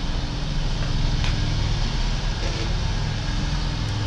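Steady low rumble of an idling engine, with a faint click about a second in.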